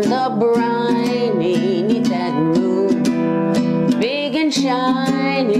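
Kala baritone ukulele strummed in a steady rhythm in the key of D, accompanying a woman singing with vibrato.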